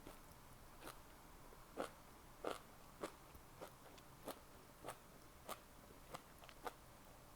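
Close-miked chewing: a steady run of short, wet mouth clicks, about one or two a second, the loudest a couple of seconds in.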